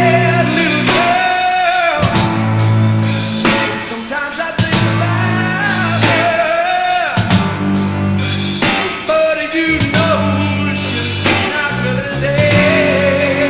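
Live hard rock band of electric guitar, bass guitar and drums playing, with a male lead vocal singing a verse of the song over it.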